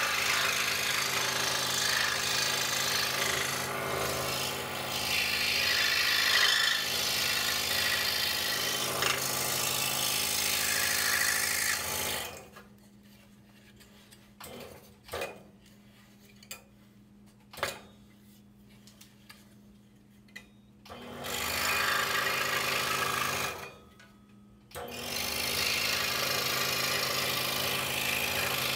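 DeWalt scroll saw cutting a wooden puzzle: the steady rasp of the blade over the motor's hum. About twelve seconds in the cutting noise stops for about eight seconds, leaving a faint hum and a few light clicks, then starts again, with one more short break shortly after.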